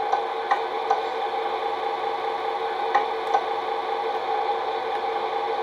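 Simulated truck diesel engine idling steadily from the RC model's multi-function sound unit, played through its small onboard speaker, with a few faint clicks.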